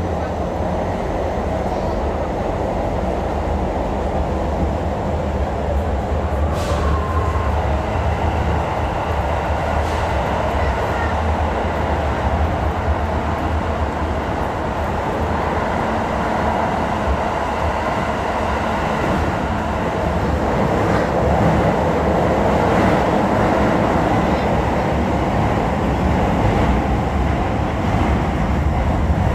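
Toei 10-300 series electric subway train running underground: a steady rumble of wheels on rail and running gear, growing a little louder in the second half.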